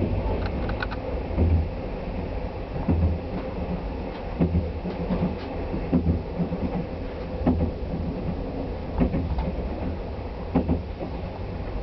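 Inside a sleeper-train passenger car running at moderate speed: a steady low rumble, with the wheels clacking over rail joints about every second and a half.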